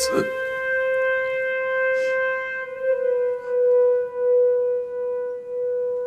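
Background music: one long held note with overtones, dipping slightly in pitch about three seconds in and swelling and fading in loudness.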